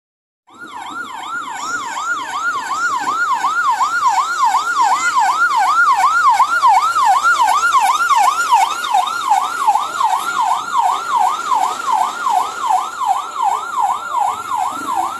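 Fire truck siren in a fast yelp, its pitch sweeping up and down about three times a second. It cuts in about half a second in and grows louder over the first few seconds.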